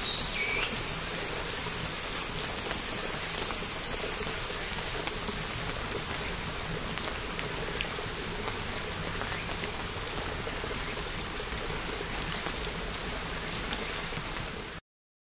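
Steady patter and hiss of light rain falling on paving and foliage, with a short chirp right at the start; the sound cuts off suddenly just before the end.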